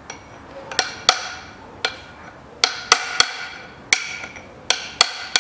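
A hammer striking a steel punch held against the bearing retainer on a rear axle shaft, about ten sharp metallic blows with a short ringing after each, unevenly spaced.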